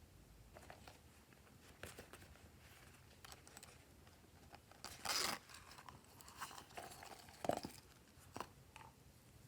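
Glossy slime being squished and stretched by hand, with scattered sticky clicks and crackles, a louder squelching burst about five seconds in and a sharp pop about two seconds later.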